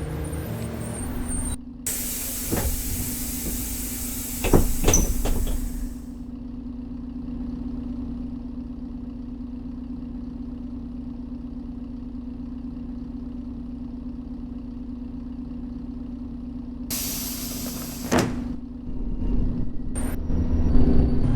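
LiAZ-5292.65 city bus standing at a stop with its engine idling steadily. About two seconds in, its pneumatic doors open with a long hiss of air and a few knocks. Near the end they close with another hiss and a knock, and the engine note rises as the bus starts to pull away.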